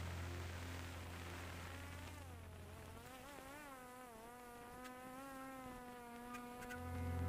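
Faint buzz of a DJI Mavic Air 2 quadcopter's propellers, its pitch wavering up and down and then holding steady. Background music fades out early on and comes back near the end.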